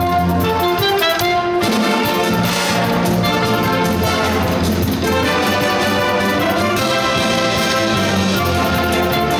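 Live school wind band playing a Eurobeat arrangement of Disney tunes: brass, saxophones, flutes and clarinets over a drum kit, with a steady beat.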